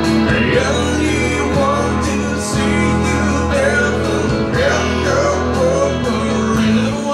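A man singing a slow ballad live, with electric guitar over sustained low backing chords.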